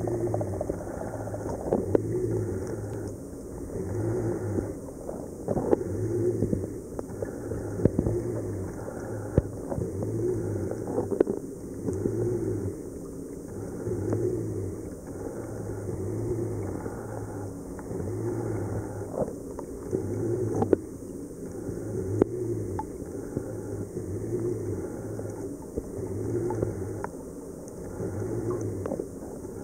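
Aquarium pump hum swelling and fading in a slow, even rhythm a little over a second apart, with a few faint clicks.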